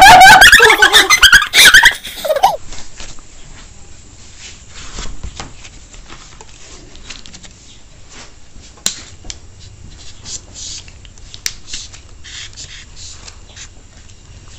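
Loud excited laughing and squealing for the first couple of seconds. Then quiet handling sounds: sharp clicks as plastic straws are punched through the foil lids of small yogurt-drink bottles, and faint rustling.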